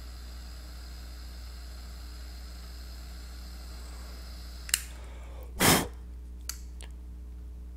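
A handheld butane jet torch hisses faintly and steadily, then is shut off with a sharp click about four and a half seconds in. About a second later comes a short, loud puff of breath, followed by a couple of light clicks.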